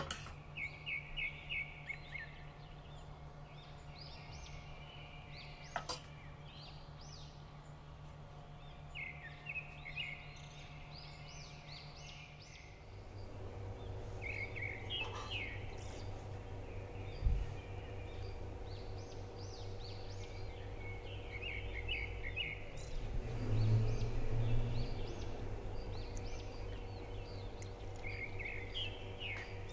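Small birds chirping over a steady hum, in short runs of quick repeated notes that recur every few seconds. A single knock comes about seventeen seconds in.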